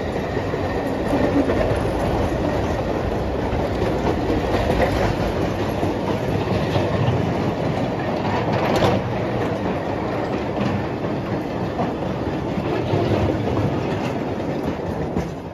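A long train of narrow-gauge slate wagons rolling past on the rails: a steady rumble and clatter of many small wagon wheels on track. It fades quickly near the end as the last wagon goes by.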